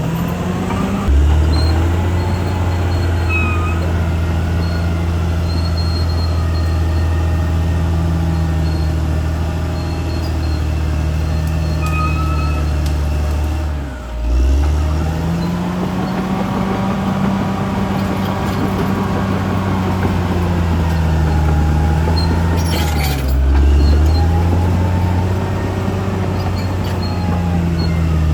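CAT D6R XL bulldozer's diesel engine running hard and steady. Its pitch drops sharply and recovers about halfway through, and again near the end.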